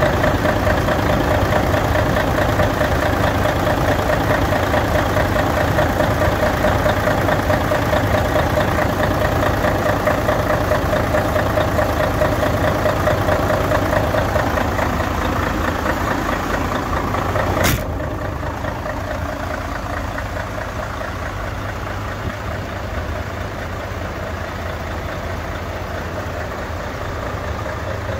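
Mercedes-Benz Actros 2641's V6 diesel engine idling steadily, heard up close in the engine bay. A sharp click comes about two-thirds of the way through, after which the idle sounds quieter and duller.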